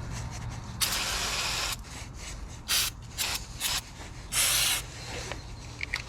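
Aerosol brake cleaner sprayed in five hissing bursts onto axle threads, washing off cutting oil: one long spray about a second in, three short squirts, then another longer spray.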